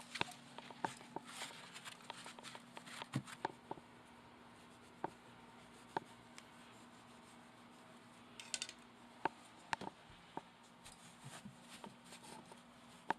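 Faint scattered clicks and taps with some light rustling, over a low steady hum.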